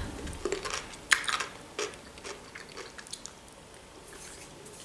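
Close-miked chewing of a cucumber in the mouth: a few crisp crunches in the first three seconds, then softer chewing.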